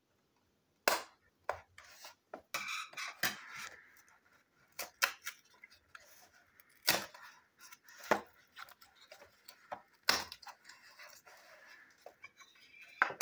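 A small cardboard box being cut open with scissors and its cardboard flaps pulled apart and rustled, with several sharp clicks and knocks as it is handled.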